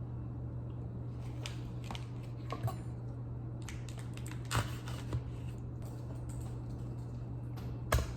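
A steady low hum with a few light clicks and knocks scattered through it, the sharpest about four and a half seconds in and again near the end.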